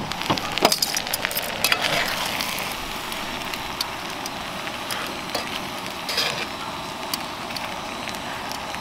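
Spaghetti with sausage and mushrooms sizzling in a cast iron skillet on a propane camp stove, with metal tongs clicking against the pan as the pasta is tossed, several clicks in the first two seconds.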